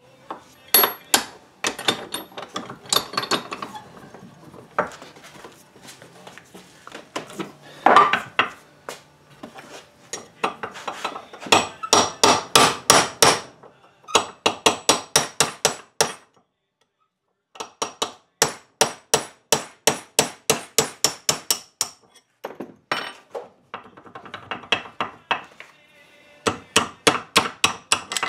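Hammer tapping new hinge pins and bushings into a 1963 Chevy pickup's door hinges, in quick runs of light strikes with short pauses between runs.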